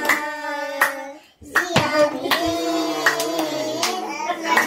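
Children singing, with hand claps keeping time about every three-quarters of a second. The sound breaks off briefly just over a second in.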